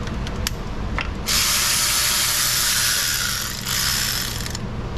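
Ratchet wrench backing out a cover bolt: a few separate clicks, then about three seconds of fast, continuous ratcheting that stops shortly before the end.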